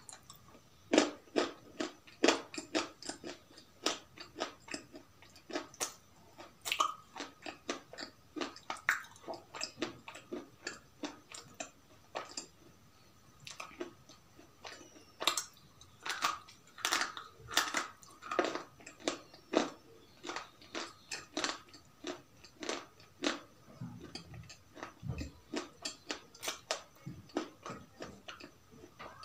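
Close-miked chewing and biting of crunchy food: a quick, irregular run of crisp crunches and mouth clicks, with a short pause near the middle.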